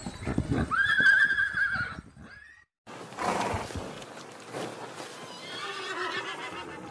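Horse whinnying: a long, wavering call about a second in, then after a short break a fainter whinny near the end.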